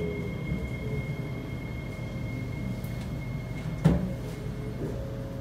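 Kawasaki C751B metro train running between stations, heard from inside the car: a steady rumble of wheels on rail with a faint high steady whine, and a lower motor tone falling in pitch near the start. One sharp knock sounds about four seconds in.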